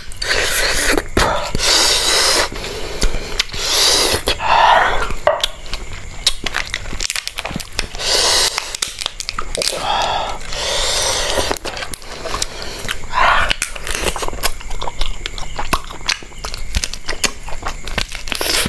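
Close-miked eating of river lobster and spicy noodles: biting, chewing and crunching, with many small clicks and several louder stretches of about a second each.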